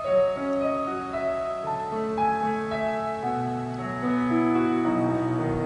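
Keyboard playing a slow hymn tune in held, sustained notes, with lower bass notes coming in about halfway through.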